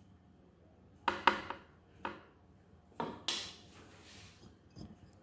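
Metal cookie scoop clicking and knocking against a stainless steel bowl and baking tray while portioning cookie dough: a quick cluster of knocks about a second in, another near two seconds, then a pair around three seconds followed by a short scrape.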